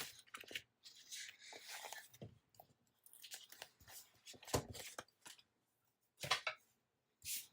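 Sticker sheets and paper being handled and flipped through: irregular short rustles and swishes with small taps, the loudest near the middle and toward the end.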